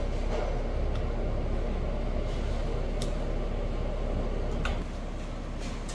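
Steady mechanical hum and hiss in a room, with a few faint clicks; the hum eases slightly near the end.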